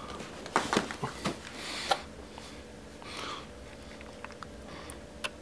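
A cardboard box being handled: a few knocks and short scrapes in the first two seconds, a softer scrape about three seconds in, then faint scattered clicks.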